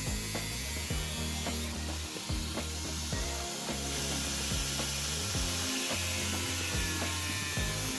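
Background music with a steady beat and low sustained bass notes that change every second or two.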